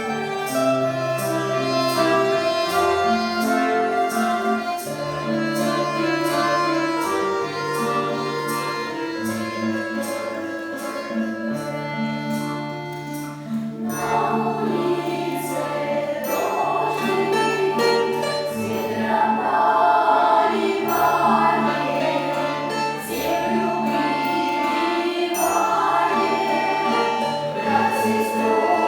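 Russian folk-instrument ensemble playing a folk song at a lively, even pulse. About halfway through, a group of voices comes in singing along over the instruments.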